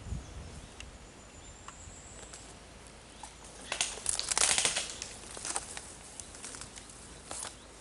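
Rustling and crackling, like dry leaves or brush being crushed, with a dense cluster of sharp crackles about four seconds in.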